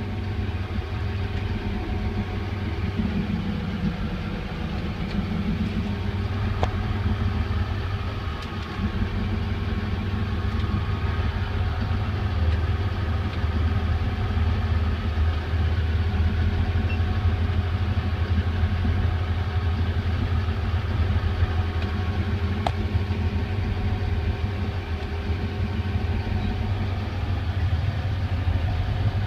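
Engine of a rigid-hulled inflatable boat running steadily at low speed, a constant low hum with no changes in pitch.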